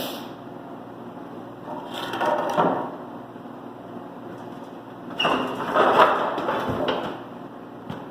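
Creaking and cracking in two bursts, about two seconds in and again from about five to seven seconds in, as a tire machine strains to break the bead of a tractor rear tire on a rusted rim.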